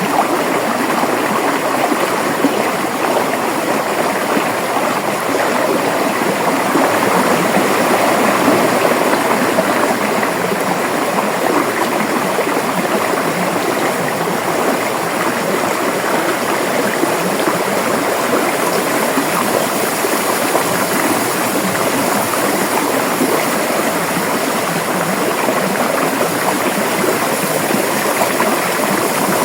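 River water flowing steadily over rocks, a continuous rushing and gurgling.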